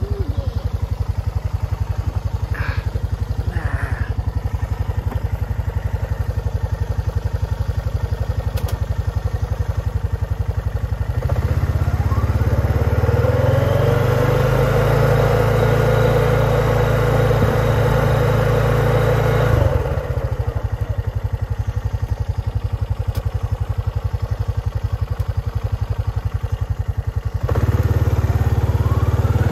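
ATV engine running while being ridden, pulling harder from about eleven seconds in, easing off near twenty seconds, and picking up again near the end.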